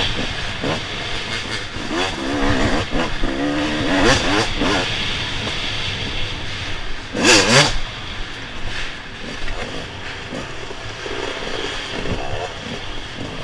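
Dirt bike engines idling and being revved, the pitch rising and falling in short blips, with one sharp, loud rev about seven seconds in.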